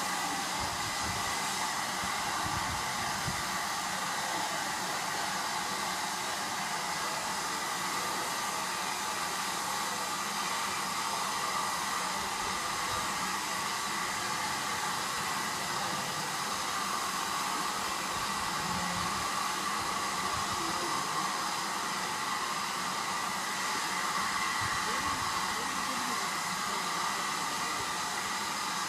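Steam locomotive No. 1638, a GWR 1600 class 0-6-0 pannier tank, standing and letting off steam with a steady, even hiss, no exhaust beats yet.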